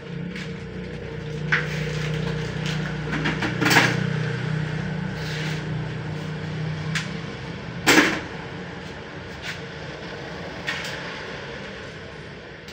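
Scattered knocks and clicks of things being handled, with two louder knocks about four and eight seconds in, over a low hum that fades out about seven seconds in.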